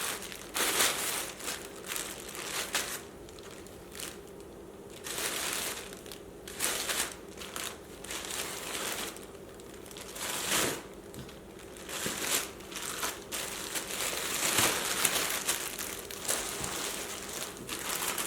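Meal-kit ingredient packaging being handled: irregular crinkling and rustling, with scattered louder crackles.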